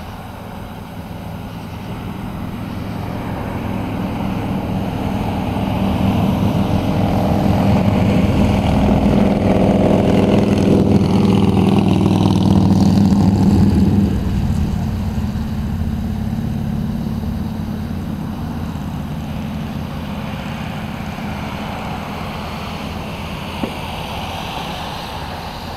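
A motor vehicle passing close by: its engine sound grows louder for about twelve seconds, falls in pitch as it goes past, then drops off sharply to a lower hum. Two faint sharp pops come near the end.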